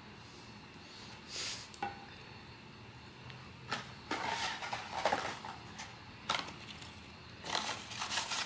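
Blind-box packaging being handled: cardboard and wrapping rustling and crinkling in short bursts, with a light click a little under two seconds in.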